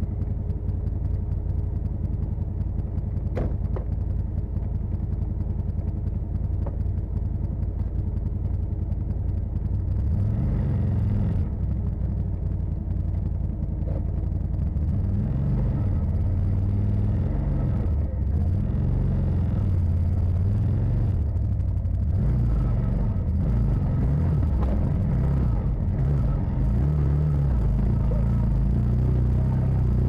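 Side-by-side UTV engine running at a low idle, with one sharp knock about three seconds in. From about ten seconds in the engine works harder, its revs rising and falling unevenly as the machine crawls over rocks and up the trail.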